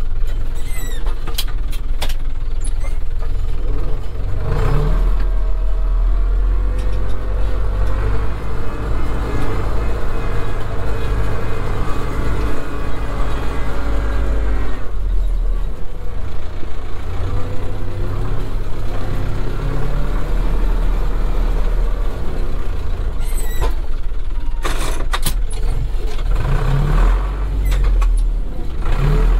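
Zetor 7211 tractor's 3.6-litre four-cylinder diesel engine running under load, heard from the cab, with the revs rising about four seconds in and again near the end. A few sharp clicks and knocks come through near the start and again around the twenty-four-second mark.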